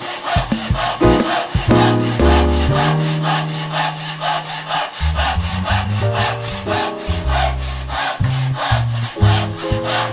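Japanese handsaw cutting through a protruding round wooden tenon with quick, even back-and-forth strokes, with background music underneath.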